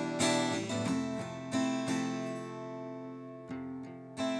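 Background music: acoustic guitar strumming chords, each chord struck and left to ring and fade before the next.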